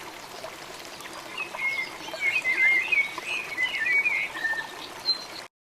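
A bird sings a warbling run of quick, high notes from about a second and a half in, over a steady rush of running water. The sound cuts off abruptly near the end.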